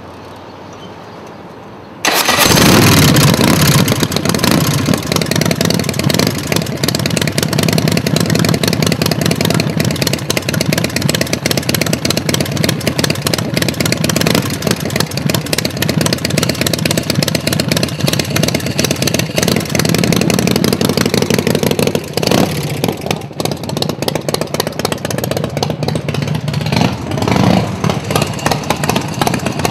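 Custom chopper's V-twin engine starting with a sudden loud catch about two seconds in, then running with throttle blips. The engine drops back briefly about two-thirds of the way through, then revs again.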